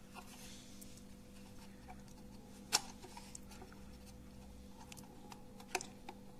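Small plastic clicks and taps from working the snap tabs of a dishwasher's display-panel housing loose by hand, with two sharper clicks, one a little under three seconds in and one near the end.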